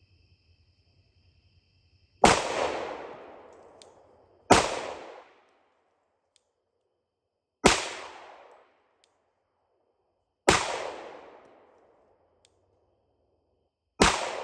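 Five single pistol shots from a Glock 21 Gen 4 firing .45 ACP full metal jacket rounds. The shots are unevenly spaced, two to three and a half seconds apart, and each one fades out in an echo lasting about a second.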